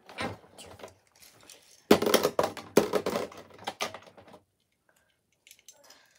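Hard plastic knocking and clattering as a plastic Beyblade battle stadium is handled and set down, with the sharpest knocks about two to four seconds in.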